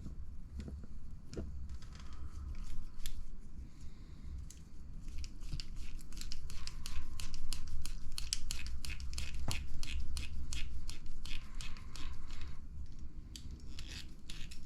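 A small button-head screw being driven into a front-end part of an RC buggy kit. There are a few scattered clicks, then from about five seconds in a dense run of rapid clicking and scraping that stops shortly before the end.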